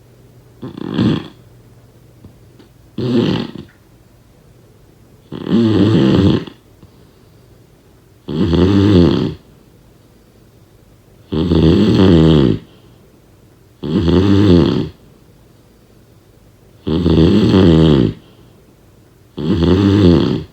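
Loud snoring in a regular rhythm: eight snores about every two and a half to three seconds, each lasting roughly a second, the first two shorter and weaker.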